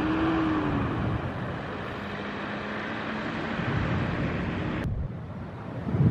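Engine drone with a faint tone that rises and falls, under wind rumbling on the microphone; the higher hiss drops away suddenly about five seconds in.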